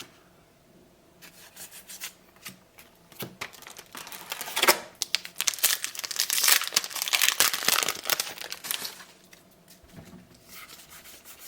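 Trading card booster pack wrapper crinkling and being torn open, with a dense crackle that is loudest in the middle and eases off near the end.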